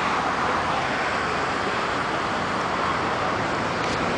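Steady, even outdoor beach ambience with no distinct events: a constant wash of noise.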